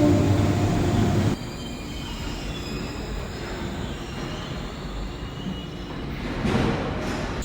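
Wuppertal suspension railway car running along its overhead rail: a loud steady hum that drops off abruptly about a second in, then a quieter rumble with faint high squealing from the wheels, and a swell of noise near the end.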